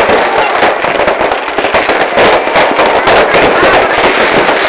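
Fireworks going off in a dense, continuous barrage: many crackling bursts overlapping with no break, loud throughout.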